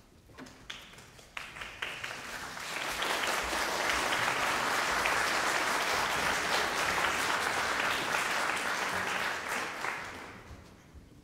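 Concert-hall audience applauding: a few scattered claps at first, swelling into full applause that holds for several seconds, then dying away near the end.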